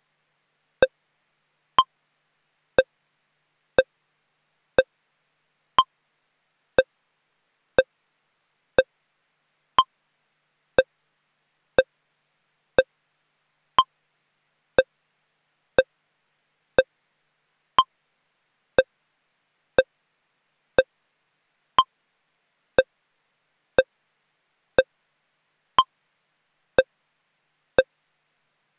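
Short electronic beeps, one each second in a steady metronome-like pattern: every fourth beep is pitched higher than the three lower ones between. This is the holding tone of a parliamentary broadcast feed during a private session.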